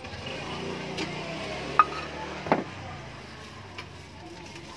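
Utensil sounds from mixing rujak in a stone mortar: a sharp ringing clink about two seconds in, and a knock a moment later as the plastic spatula is set down on the stone. Under them runs a steady low background hum.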